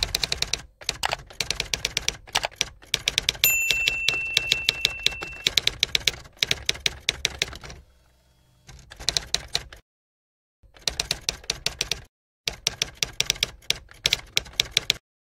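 Typewriter sound effect: rapid runs of key clacks with short pauses between them, and a bell ding about three and a half seconds in that rings for a couple of seconds.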